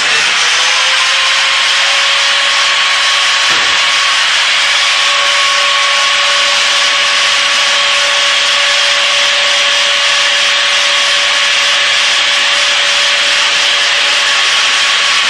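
Biscuit joiner's electric motor running steadily at full speed, a loud hiss with a constant high whine; the whine dips in pitch briefly right at the start, then holds steady.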